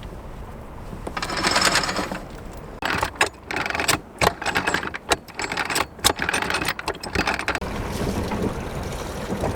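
Wind gusting over the microphone aboard a sailboat in rough weather, with water rushing along the hull; through the middle, irregular sharp crackles and knocks.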